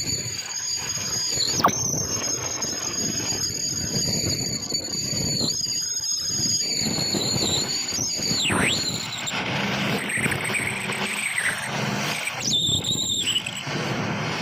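A power tool working metal on an axle housing, with a high, steady squeal over a grinding noise. The squeal dips in pitch briefly about two seconds in and again a little past eight seconds, and changes pitch once more near the end.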